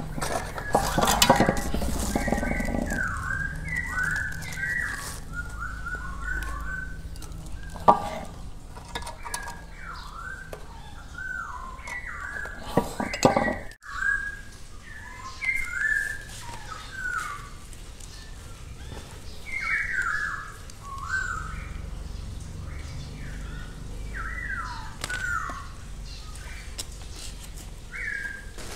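A bird chirping in short whistled notes, many of them falling in pitch, repeated irregularly over and over. Now and then there are knocks and a clatter from circuit boards and cables being handled, the loudest near the start.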